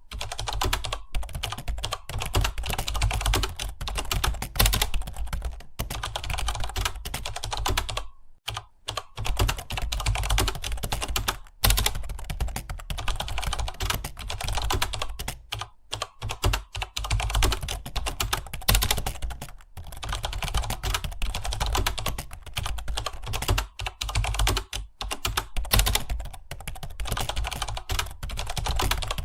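Rapid, continuous typing on a computer keyboard: a dense clatter of keystrokes, with brief lulls about eight and sixteen seconds in.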